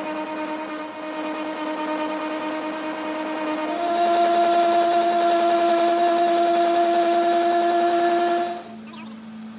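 Metal lathe running as it turns a steel ring, a steady machine whine with several pitches. About four seconds in the whine jumps to a new, louder pitch, and it drops away sharply near the end.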